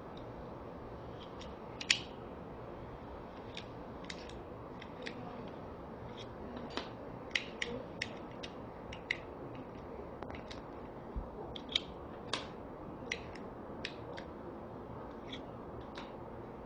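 Sharp metal clicks and snaps from a Zhengyu Metal CYM-968 folding utility knife as blades are loaded into its blade magazine. The clicks come irregularly, one loud click about two seconds in and a denser run in the middle, over a steady faint hiss.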